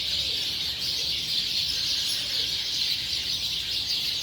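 A dense chorus of many small birds chirping and chattering at once, a steady wall of high twittering: a mixed flock gathering to roost at sunset.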